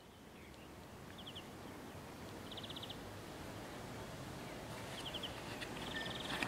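Outdoor summer ambience: a steady hiss with four short, rapid chirping trills, and one sharp tap near the end.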